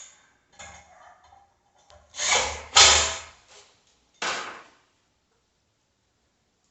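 Three loud scraping rubs of hard parts being handled, two close together about two to three seconds in and a shorter one about four seconds in.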